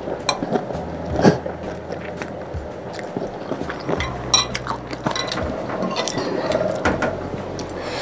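Close-miked eating sounds: noodles in spicy broth slurped from chopsticks and spoon, then wet chewing, with a metal spoon clinking against the ceramic bowl as irregular ticks.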